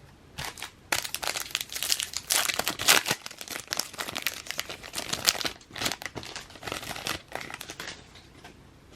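A foil trading-card pack being torn open and its wrapper crinkled, a dense run of crackling from about a second in that dies down near the end.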